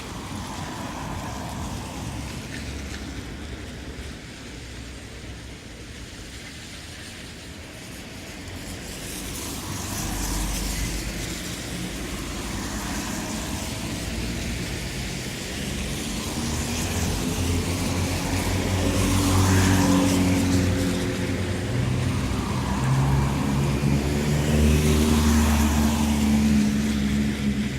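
Town traffic on a wet road: vehicles passing one after another, with the hiss of tyres on the wet surface swelling with each pass. The second half is louder, with engine notes rising and falling under the tyre hiss.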